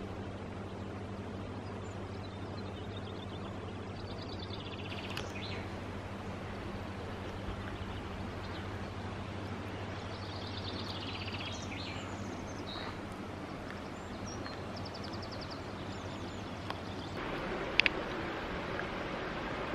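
Quiet outdoor ambience with songbirds singing in short runs of rapid repeated high notes, twice, over a steady low hum. Near the end the background changes and there are a couple of sharp clicks.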